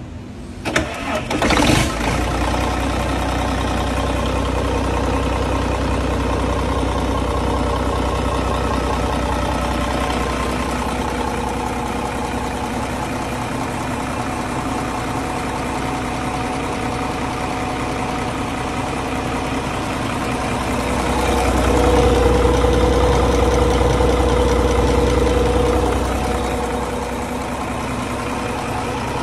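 Yanmar marine diesel engine cranked and catching about a second in, then running steadily. It is brought up to higher revs for about five seconds past the middle and drops back to a lower speed near the end.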